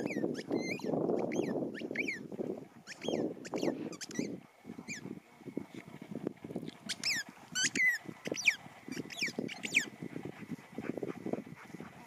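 A dog chewing a squeaky ball: repeated short, high squeaks in quick clusters, most falling in pitch, with a low rustle during the first few seconds.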